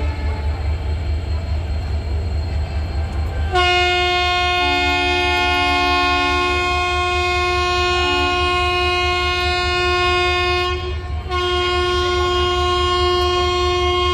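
Passenger train coaches rolling past with a steady low rumble. About three and a half seconds in, the locomotive's horn sounds a long multi-tone blast, stops briefly after about eleven seconds, then sounds again: the departure horn.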